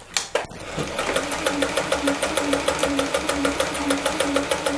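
Olimatic 4000 electric sewing machine running and stitching through denim, sewing a stretch stitch. It starts under a second in after a click, then keeps up a fast, even clatter of about six needle strokes a second over a low motor hum.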